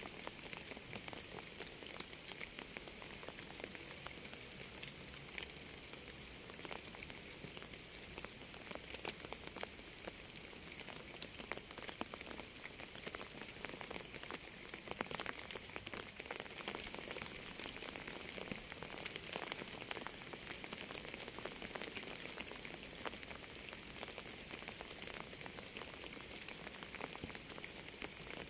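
Steady rain falling: a dense, even hiss, mostly high-pitched, dotted with many small drop ticks.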